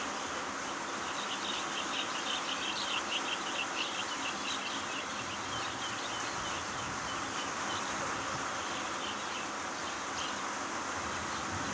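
Steady hiss of falling rain, with a bird giving a rapid run of short high chirps from about a second in for several seconds before it thins out.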